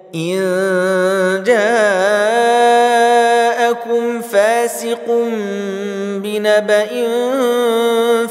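Male voice reciting the Quran in slow, unaccompanied murattal chant, drawing out long held notes that waver and bend in pitch. A new phrase begins about a second and a half in.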